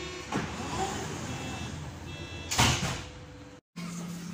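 Berlin U-Bahn G-type train's sliding doors closing. A steady warning tone cuts off just as the doors start to slide with a knock, and they run shut within about a second and a half. A louder burst of noise comes about two and a half seconds in, then the sound drops out briefly and a steady low hum takes over.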